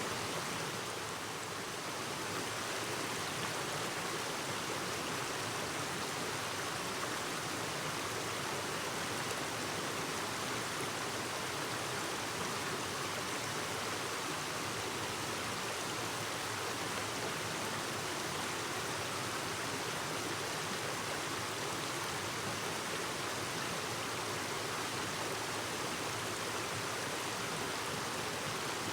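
Clear stream babbling: a steady rush of flowing water, dipping slightly in level about a second in.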